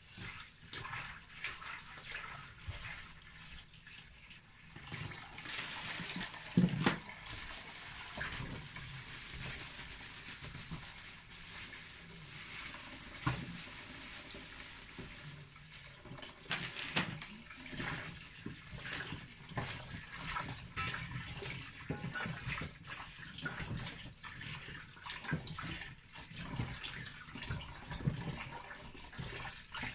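Kitchen tap running into a stainless-steel sink while spinach and then okra are rinsed by hand under it, with splashing and occasional knocks and clatters, the loudest about seven seconds in.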